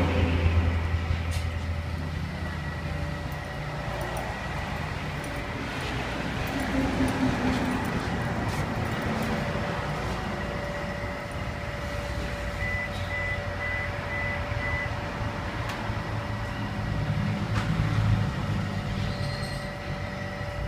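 Suzuki Swift's engine running through an aftermarket titanium exhaust: a steady low exhaust note at idle, louder near the start and swelling briefly twice later on.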